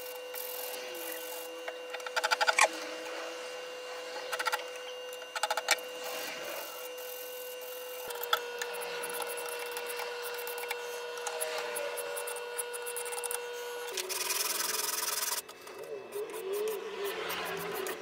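A wooden knife blank being sanded by hand, with the abrasive rubbed back and forth over the wood in short quick strokes. A louder stretch of rubbing comes about two-thirds of the way in.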